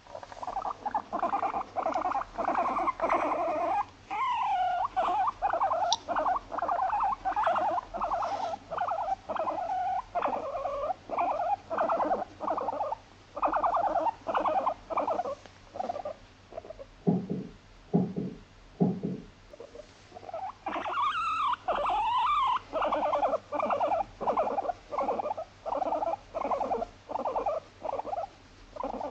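Abyssinian guinea pig vocalizing while being stroked on the head: a steady string of short calls at about two a second. A longer rising-and-falling squeal comes about four seconds in and again around twenty-one seconds in, and three short low grunts come about seventeen to nineteen seconds in.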